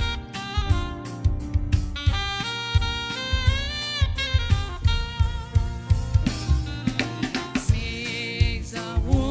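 Instrumental interlude of a gospel hymn played by a band: a sustained melody line over a drum kit keeping a steady beat.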